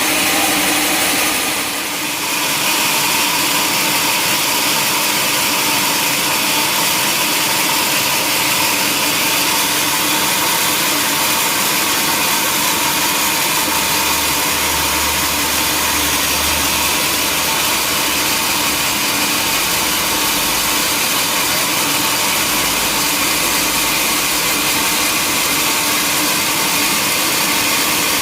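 A sawmill saw and its motor running steadily while cutting a log, with a constant whine over a loud rush of noise. It dips briefly about two seconds in.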